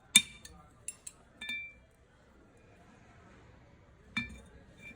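Metal hand tools clinking against the metal parts of a jet pump: a quick run of sharp, ringing clinks in the first second and a half, then one more about four seconds in.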